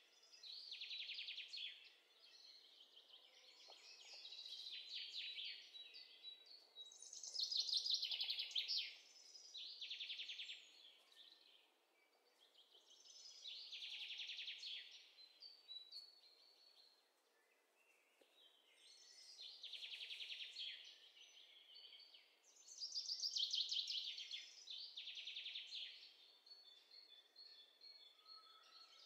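Birdsong: high chirping trills in phrases of one to two seconds, one after another with short pauses.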